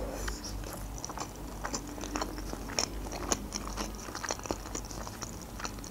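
A person chewing a mouthful of soft layered mimosa salad: many small, irregular mouth clicks.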